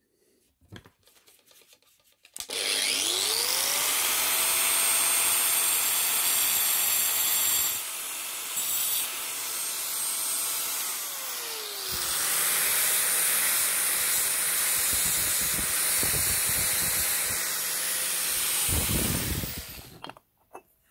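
Electric angle grinder with a sanding disc, sanding a brass ball. It spins up about two seconds in and winds down near the middle, then spins up again at once and runs until it stops about a second before the end. The motor whine sits under a rasping sanding noise.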